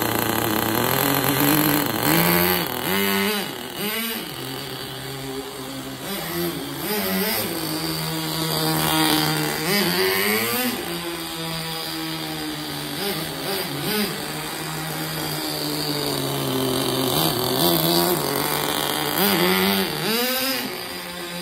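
Kyosho GT15 nitro engine in a GP10 RC car running, its pitch rising and falling in quick throttle bursts several times, with steadier running between.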